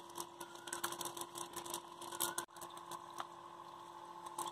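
Faint rustling and crackling of a fine nylon mesh net being handled as small fish are picked out of it by hand, with many small irregular clicks, over a faint steady hum.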